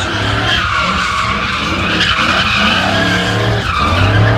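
Pickup truck doing donuts, its tyres screeching continuously on the pavement while the engine revs rise and fall.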